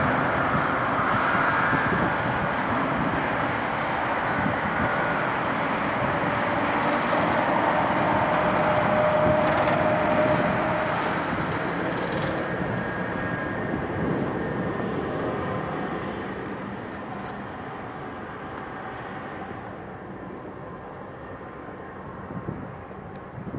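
Boeing 767-300 airliner's jet engines running as it rolls along the runway after landing: a steady rushing whine with a faint held tone, fading gradually in the second half as the aircraft moves away.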